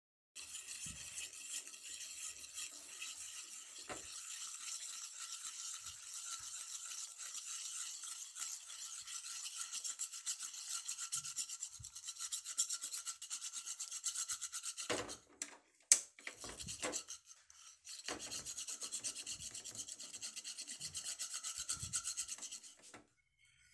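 Spoon scraping round and round a steel pan, stirring sugar as it melts into caramel for dalgona candy. The scraping breaks off after about fifteen seconds for a few knocks and one sharp clink, the loudest sound, then starts again until near the end.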